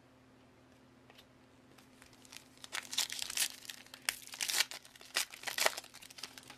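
Foil wrapper of a trading card pack being torn open and crinkled in the hands: a run of loud crackling that starts about two and a half seconds in and stops just before the end.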